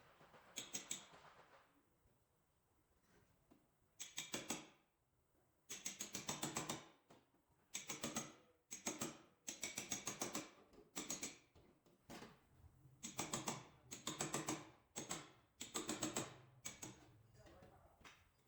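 Rapid clicking in about a dozen short bursts, each lasting about half a second to a second, with brief pauses between them.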